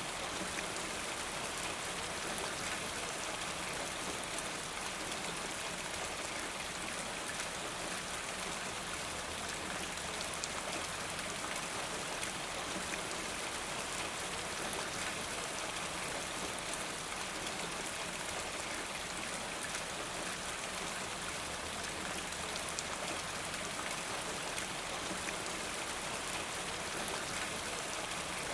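Steady rain falling: a continuous even hiss with many small drop ticks through it.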